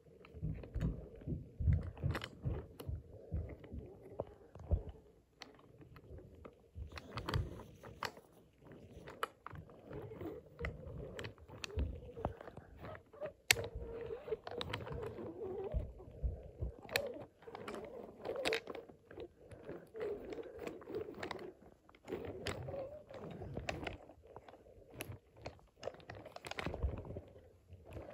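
Wooden toy trains pushed by hand along wooden track: wheels rolling and clacking on the wood, with irregular knocks and thumps as the cars and track pieces are handled.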